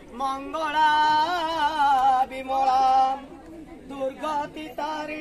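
Hindu devotional song to the goddess: a voice singing long, drawn-out notes with a wavering vibrato in phrases with short breaks, over a steady drone.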